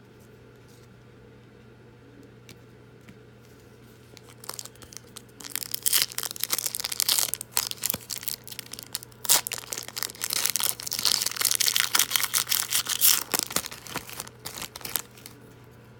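Foil trading-card pack wrapper being torn open and crinkled, a run of irregular crackling and ripping that starts about four seconds in and stops a second before the end.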